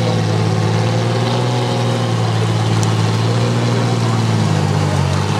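Off-road vehicle engine running steadily at low revs, its pitch shifting slightly near the end.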